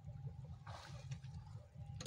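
Faint low wind rumble on the microphone, with a brief splash of shallow water a little under a second in.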